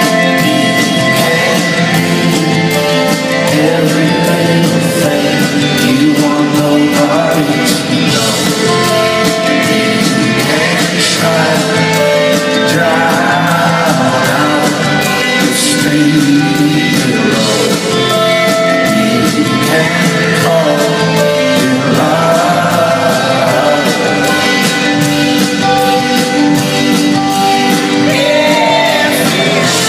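A live rock band playing electric guitars, keyboards and drums, with a sung vocal line coming in at times, heard from the audience in a large hall.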